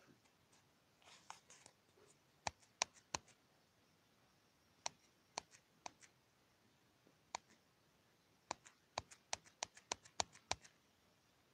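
Sharp, short clicks in a quiet room, a few at a time with pauses between them, then a quick run of about a dozen near the end.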